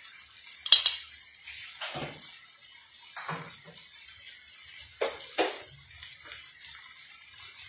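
Chopped vegetables, spices and dried fish sizzling in oil in a frying pan, a steady hiss. A handful of sharp clicks and knocks sound over it, the loudest about a second in.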